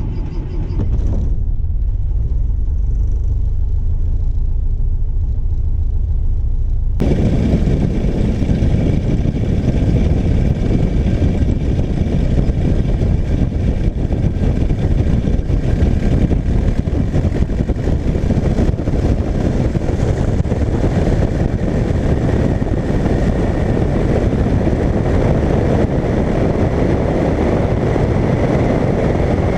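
The Piper Pacer's Lycoming O-290-D2 four-cylinder engine and propeller running steadily and loudly during the takeoff roll. About seven seconds in, the duller sound heard inside the cabin gives way to a rougher, brighter roar from outside under the wing, mixed with rushing air.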